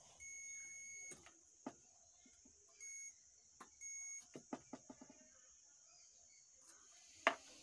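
Digital multimeter's continuity beeper sounding three times: one beep of about a second, then two short ones, as the probes bridge a MOSFET's legs. The beep signals a near-zero-resistance path, the sign of a shorted MOSFET. Light clicks of the probe tips on the board fall between the beeps.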